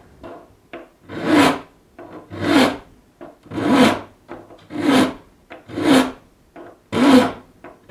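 Saw file cutting across the steel teeth of a 48-inch frame saw blade clamped in a wooden saw vise, shaping the teeth: six even rasping strokes about one a second, each carrying a pitched ring, with light ticks between strokes.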